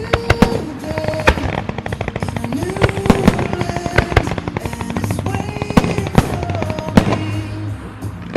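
Display fireworks going off in quick volleys: rapid strings of sharp bangs with a few louder single reports among them, over music.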